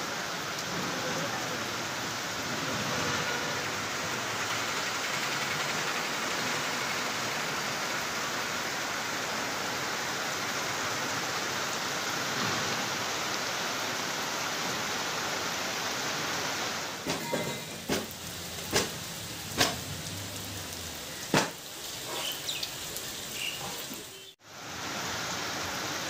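Heavy rain falling with a steady hiss. About two-thirds of the way in, a handful of sharp knocks or taps sound over it. The sound briefly cuts out near the end before the rain resumes.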